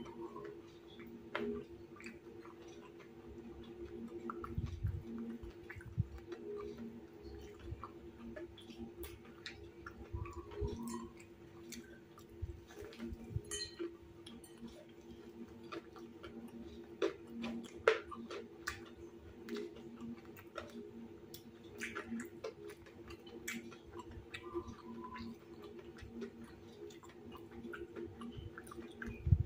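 Close-up chewing of crispy fried tahu bakso (meatball-stuffed tofu) with rice: wet mouth sounds with many small irregular crunchy clicks. A steady low hum runs underneath.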